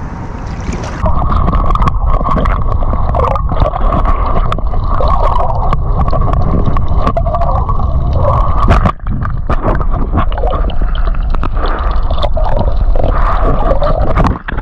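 Muffled water sloshing and gurgling heard through a submerged camera's microphone in shallow seawater, starting about a second in as the camera goes under.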